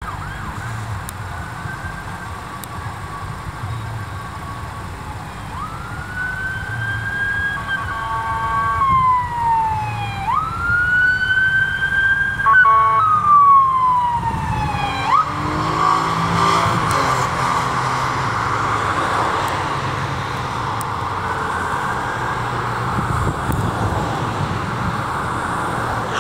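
Police car siren wailing in two slow rising-and-falling sweeps, broken by short choppy tones. About fifteen seconds in it changes to a faster, rougher pattern, over the steady rumble of road traffic.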